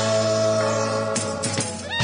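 Live band playing an instrumental passage between sung lines: held chords, with a cymbal wash from a little past the middle until a new chord comes in at the end.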